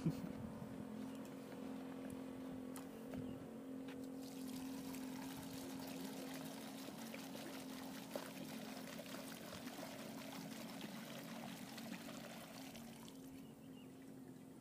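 Petrol poured from a plastic jug through a funnel into a motorcycle's fuel tank: a steady trickling, splashing pour that fades near the end, over a low steady hum.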